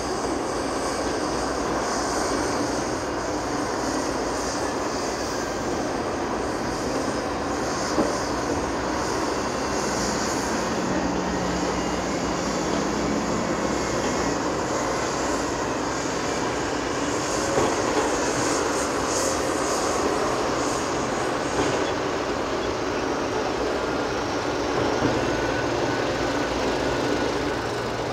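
Claas Axion 810 tractor with a tandem-axle dump trailer driving over dirt: the diesel engine runs and the rig rolls along, a steady mechanical noise. A low hum stands out for a few seconds near the middle.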